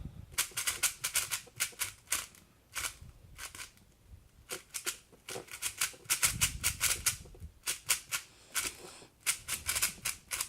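Rapid clicking and clacking of a MoYu AoSu GTS M 4x4 speed cube being turned by hand, in quick runs of turns separated by short pauses.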